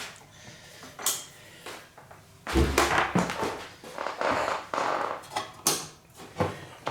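Bench test gear and leads being handled on a workbench: scattered knocks and clicks, a heavy thump about two and a half seconds in, then a couple of seconds of scuffing and rattling, and a few more knocks near the end.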